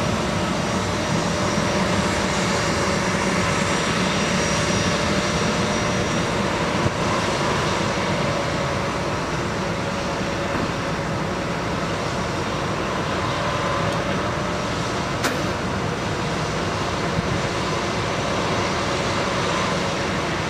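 A-10 Thunderbolt II's twin turbofan engines running steadily at taxi power: a continuous jet rumble with a steady whine on top.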